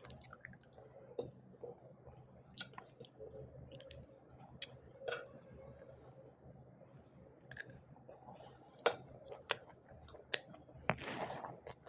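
Fingers mixing rice with egg curry on a plate: scattered soft clicks and wet squishes, with a longer squelching rustle about eleven seconds in.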